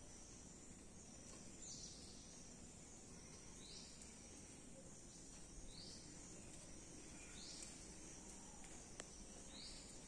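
Near silence with a faint hiss, through which a faint high insect chirp repeats about every two seconds, five times.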